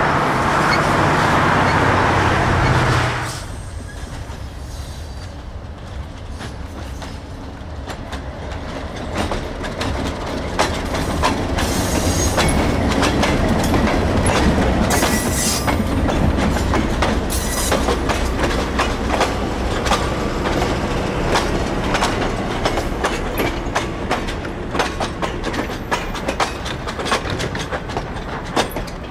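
A GO Transit diesel locomotive and bilevel coaches rush past for about three seconds, then the sound cuts. After that a slow passenger train rolls by: steel wheels clicking over the rail joints, growing louder as the coaches pass, with a few brief wheel squeals.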